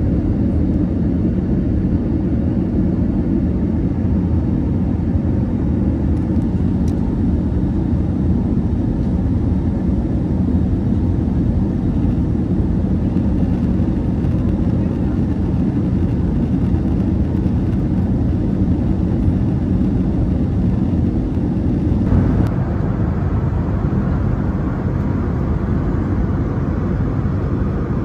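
Steady low roar of an Airbus A321neo's cabin in flight: engine and airflow noise heard from an economy seat. About 22 seconds in, the sound turns more hissy and hollow.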